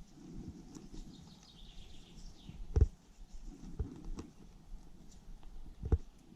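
Two sharp knocks about three seconds apart as wooden sticks are handled and set down, with low rustling between them. A bird calls once in the background, a short falling chirp.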